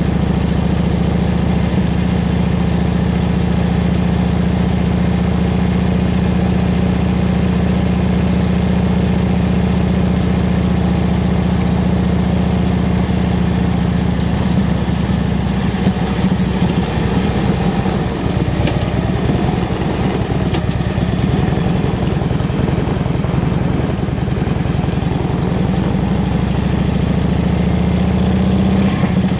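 Harley-Davidson V-twin motorcycle engine running steadily at low road speed. Its note wavers for a few seconds past the middle as the throttle changes.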